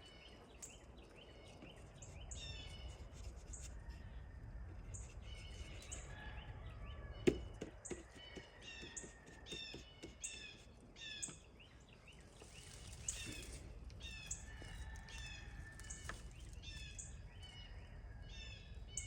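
Small birds chirping: runs of short, high chirps that keep repeating every second or so, with one sharp knock about seven seconds in.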